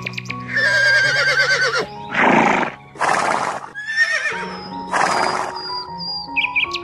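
A horse whinnying in quavering calls, once about half a second in and again around four seconds, between three loud rushing bursts of noise, over background music with held notes.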